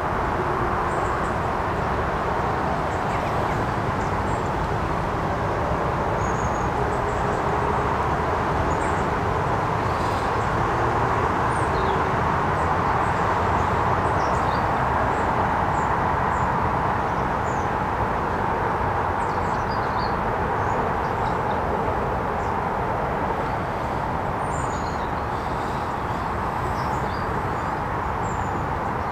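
Steady rushing of flowing river water, with faint high chirps of small birds now and then.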